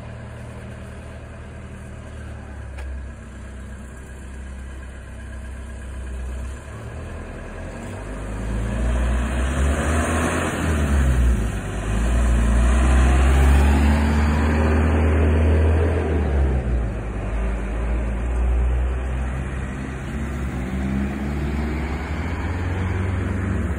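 Fire brigade vehicles' engines pulling away and driving past: an older red fire engine's engine grows louder and changes pitch, loudest around the middle, followed by a fire brigade van.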